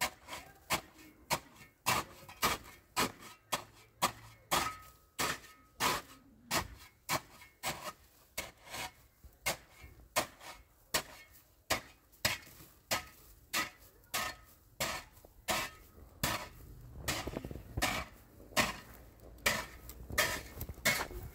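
Steady run of sharp knocks or blows, about two a second, with a low rumble joining in near the end.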